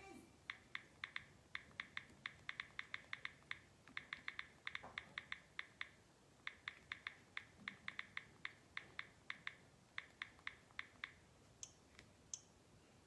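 Faint, quick, irregular clicks in runs of several a second, like typing on a keyboard. They stop about eleven seconds in.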